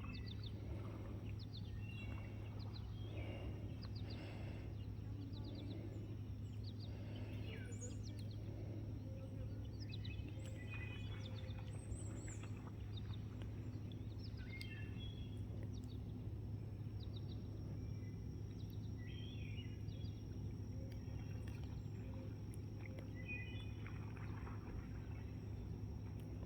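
Birds chirping and calling on and off over a steady low background hum.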